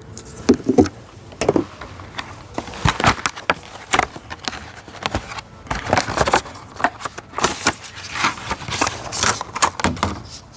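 Irregular clicks, taps and rattles from a replacement wiper blade and its hook latch being handled and worked onto the wiper arm.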